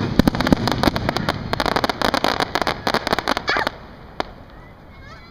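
Fireworks crackling as a dense run of rapid sharp cracks, which stop suddenly about three and a half seconds in, followed by one lone crack.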